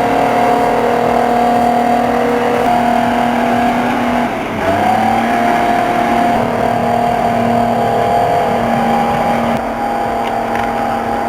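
FMC tracked skidder running under power: a steady, loud mechanical drone with a pitched whine. The drone dips and then rises in pitch about four and a half seconds in, and holds steady after.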